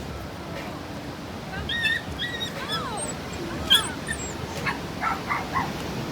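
An animal yelping and whining over a steady hiss of noise. A few high, bending cries about a second and a half in are followed near the end by a quick run of short yelps, about three a second.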